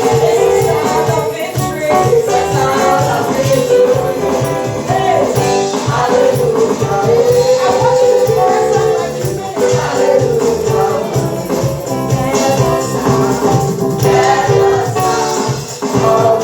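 Live church praise-and-worship music: voices singing over a band with a steady beat.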